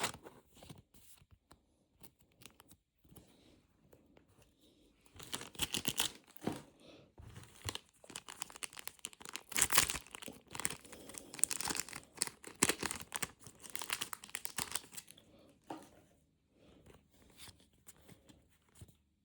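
Crinkly plastic Pokémon card packaging being handled and torn: scattered light taps at first, then several seconds of dense crinkling and tearing in the middle, dying down to faint rustles near the end.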